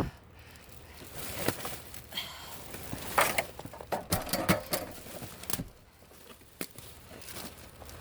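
Plastic bag rustling and crinkling, with irregular clicks and taps, as a bag of paper patterns and magazines is opened and handled.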